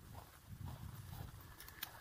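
A hiker's footsteps walking over moorland grass, soft regular footfalls about twice a second, with a low rumble underneath and a couple of sharp clicks near the end.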